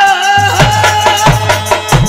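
Instrumental break in dhola folk music: a steady held melody note over a drum beat, with short jingling percussion strokes coming in about half a second in.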